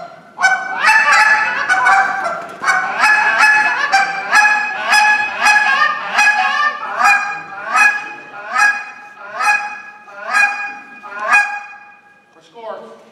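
Goose call blown by hand, imitating Canada geese: a fast run of honks and clucks, then separate honks about every three-quarters of a second, with a lower drawn-out note near the end.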